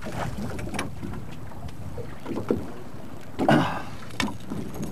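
Steady low rumble of a fishing boat on the water, with a short shout about three and a half seconds in.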